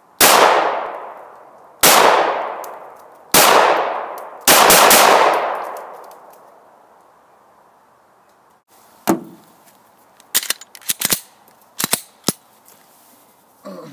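Glock 19 Gen 3 9 mm pistol firing a string of shots about a second and a half apart, the last two close together, each crack ringing out with a long echoing tail. A few seconds later come a series of light, sharp metallic clicks and clinks.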